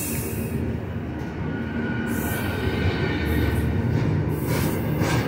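Double-stack intermodal well cars of a Union Pacific freight train rolling slowly past, a steady low rumble. A faint high wheel squeal comes in around the middle.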